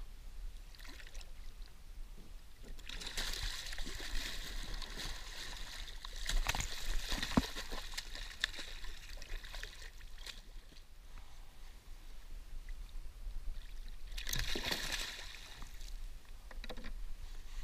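A hooked Pacific halibut thrashing at the surface beside a kayak, splashing the water. It comes in a long burst from about three seconds in until about ten seconds, with a few sharp knocks in the middle, and again briefly near the end.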